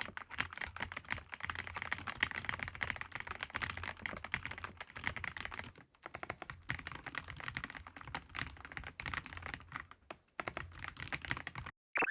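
Fast typing on a Dustsilver D95 mechanical keyboard: a quick, dense run of key clicks that pauses briefly twice and stops just before the end.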